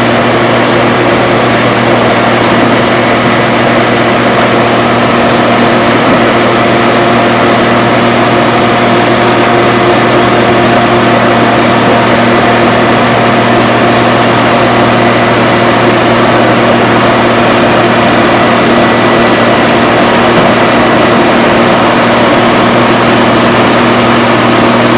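Heavy engine of road-works machinery running steadily at a constant speed, a loud unchanging hum.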